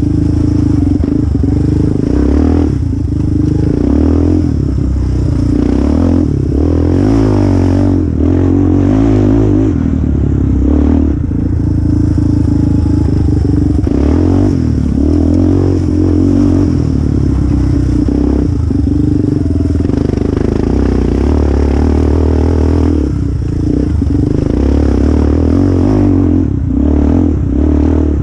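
Yamaha Raptor quad's engine running hard through a race, heard from the rider's seat, its revs rising and dropping every few seconds as the throttle is worked over rough trail.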